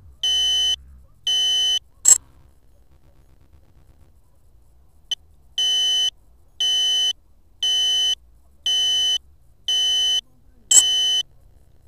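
An electronic beeper sounding a steady half-second beep about once a second. It stops after a sharp click about two seconds in, stays quiet for a few seconds, then resumes, with another sharp click near the end.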